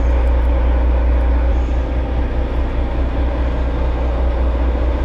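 A fishing boat's engine running steadily: a loud, low drone with an even rush of noise over it.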